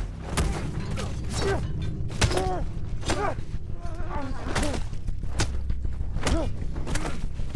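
Soldiers fighting hand to hand with blades: a quick run of sharp hits and clashes, with men grunting and crying out between them, over a steady low rumble.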